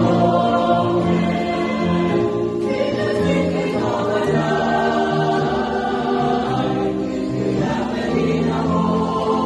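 Mixed choir of men and women singing a gospel song.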